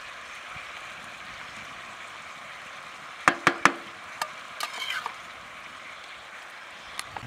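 Metal spoon clinking and scraping against a steel bowl while ground walnuts are scooped and spread: three sharp clinks a little past three seconds in, lighter clicks and scrapes a second later, and one more near the end, over a steady hiss.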